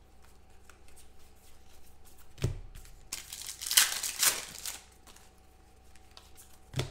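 Foil trading-card pack being torn open and crinkled by hand, in noisy crackling bursts across the middle of the stretch. A dull knock comes just before it, and a short one near the end.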